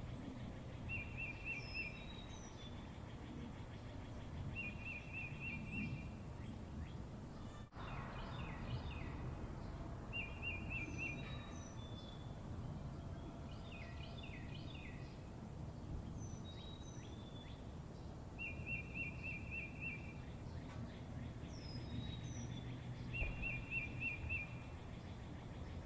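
Birds singing and chirping, with a short trill phrase that comes back every few seconds among high falling whistles and bursts of chirps, over a steady low background rumble.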